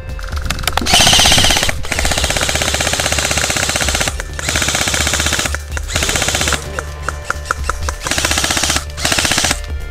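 Airsoft electric gun (AEG) firing on full auto in several long bursts of rapid, even clicks, with short breaks between them.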